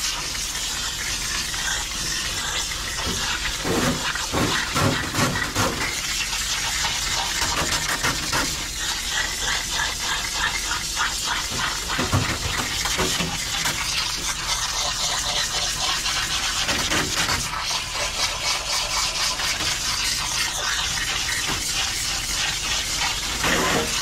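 Steady hiss of water spraying from a hand-held bath hose nozzle into a dog's wet coat, with water running onto a stainless steel tub. A few brief low bumps come through it.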